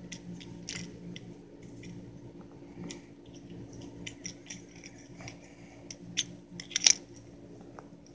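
Two young kittens scuffling against the microphone: fur rubbing and small scratchy clicks from paws and mouths, with a few louder clicks near the end, over a faint steady hum.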